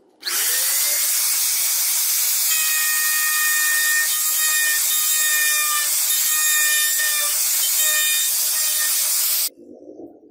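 Electric plunge router starting up, its pitch rising briefly as the motor comes up to speed, then running steadily with a high hiss while the bit cuts into the wood. It cuts off suddenly near the end.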